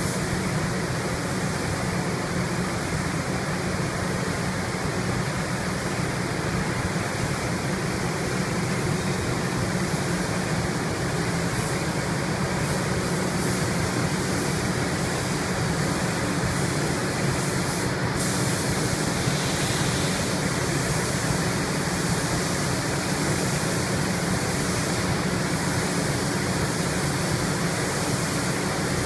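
Steady hiss of a compressed-air paint spray gun laying on a colour coat, over a constant low hum; the upper part of the hiss shifts about two-thirds of the way through.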